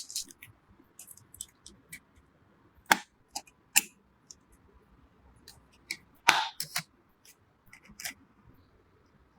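Sharp clicks and short plastic-and-metal scrapes of computer parts being handled and fitted, a few loud ones standing out from many small ticks, with a longer scrape about six seconds in.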